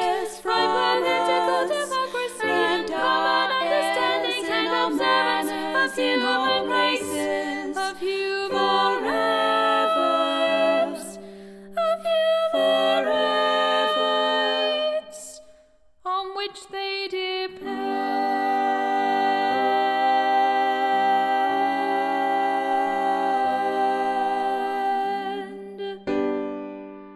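A slow song sung by voices over a steady low held note. There is a short break about halfway, then long held notes, and the music fades out near the end.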